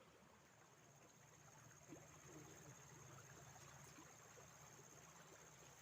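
Near silence: faint outdoor ambience with a steady, high-pitched insect trill, and a couple of faint ticks.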